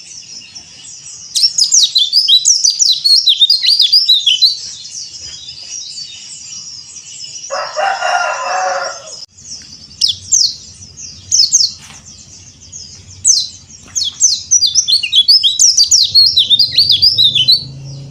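Yellow-breasted white-eye (pleci dakbal) singing: fast, high twittering runs of quick chirps, one of about three seconds early on and a longer one from about ten seconds in. Near the middle a lower, harsher call lasts about a second and a half. A faint high chirring continues underneath throughout.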